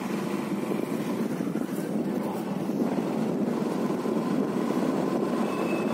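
Steady rush of wind on the microphone mixed with road and engine noise from a motorcycle being ridden.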